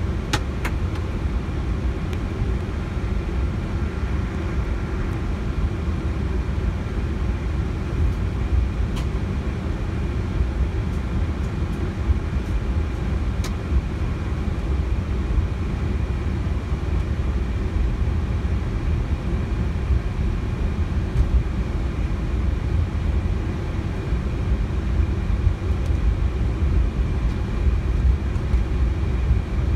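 Steady low rumble inside the cockpit of an Airbus A321neo as it taxis, its engines at idle, with a few faint clicks.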